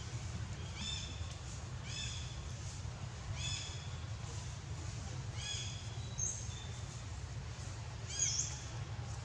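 A series of short, high-pitched animal cries, about one a second, each with a slight downward bend; the loudest comes near the end. A steady low rumble runs underneath.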